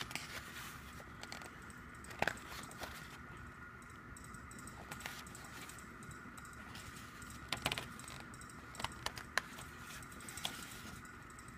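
Pages of a thick photobook being turned by hand: faint paper rustling with a few short flicks and ticks, most of them in the second half, over a steady faint background tone.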